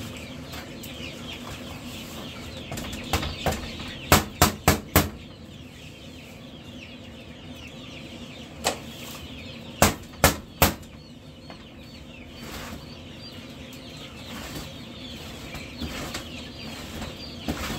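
Many chicks peeping in brooder cages, with litter being scraped on a brooder's droppings tray. Sharp knocks stand out above the peeping: four quick ones about four seconds in, one near nine seconds, and three more about ten seconds in.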